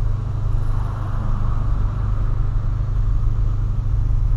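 Steady low rumble of a 2008 Volkswagen Polo sedan's engine and running gear, heard from inside the cabin.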